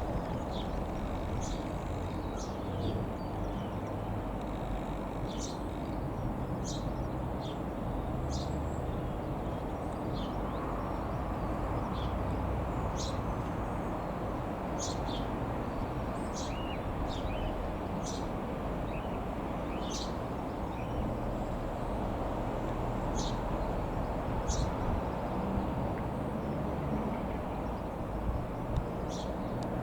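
Small birds chirping in short, high notes, repeated irregularly, over a steady low rumble.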